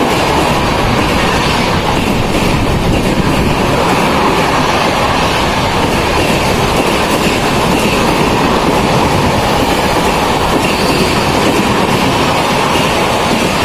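Mumbai suburban local train running at speed: a loud, steady rumble and rattle of the wheels on the track.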